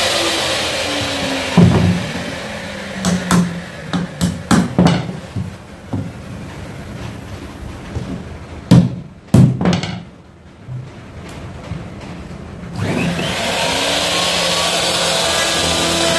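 Electric hand router running, then switched off and spinning down; a hammer then knocks on the board several times, two of the blows much louder. About three quarters of the way through, the router starts again, its whine rising as it comes up to speed, and runs steadily.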